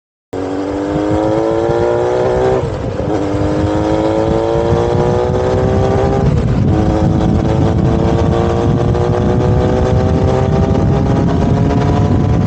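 Motorcycle exhaust fitted with a modified Realize universal silencer, pulling up through the gears. The engine note climbs slowly, dips at a gear change about two and a half seconds in and again about six seconds in, then climbs again over a rough low rumble. It cuts in abruptly just after the start.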